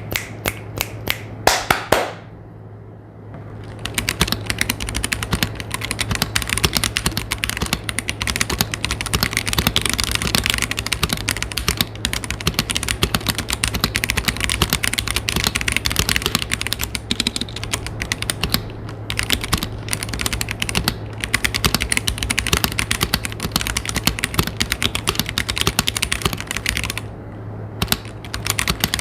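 Typing on a Womier K98 mechanical keyboard with tactile Gateron Brown switches: rapid, continuous keystrokes, with a few separate presses at first and short pauses about two seconds in and near the end. The keys sound slightly high-pitched but quiet. A steady low hum runs underneath.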